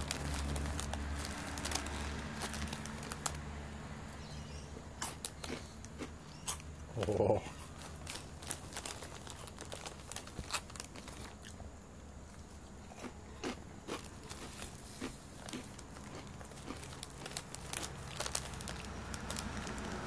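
Irregular light clicks and taps on a tile floor as a cat paws at a redclaw crayfish, whose legs and claws scrape against the tiles.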